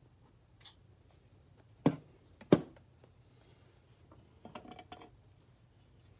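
Hand-work on a wooden knife handle at a bench vise: a faint scrape, then two sharp knocks about two thirds of a second apart, then a short run of light clicks and rattles.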